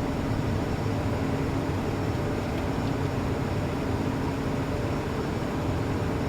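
Steady cockpit noise of a Cessna Citation jet in its initial climb just after takeoff: the even rush of engines and airflow with a constant low hum.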